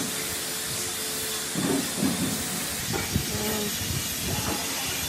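A steady hiss, with soft rustles and a sharp click a little after three seconds in, as the stripped ends of copper wire are twisted together by hand.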